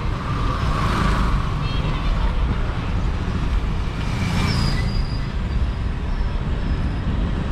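Steady wind and road rumble on the microphone of a moving bicycle, with two vehicles passing, about a second in and again about four and a half seconds in.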